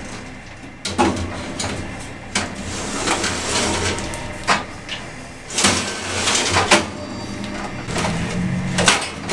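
Metal electrostatic filter cells sliding into the cabinet of a Honeywell F54C electronic air cleaner. Stretches of metal-on-metal scraping run between a few sharp clicks and knocks as the cells seat and the access door is handled.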